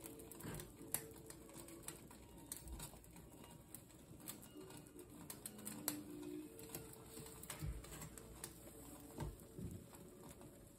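Kitchen knife slicing through a block of queso fresco and tapping on a wooden cutting board: faint scattered clicks and a few soft knocks.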